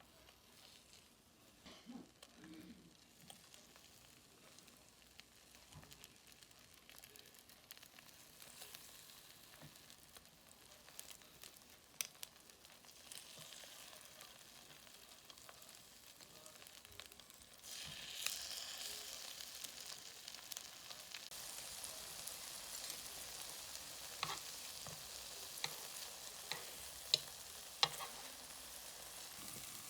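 Food sizzling in a frying pan, the sizzle growing louder and jumping up a little past halfway, with scattered clicks of a utensil against the pan.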